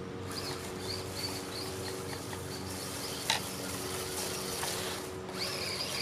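Faint high-pitched whine of a small RC truck's electric motor driving across grass, coming in briefly near the start and rising again near the end, over a steady low hum. One short click about three seconds in.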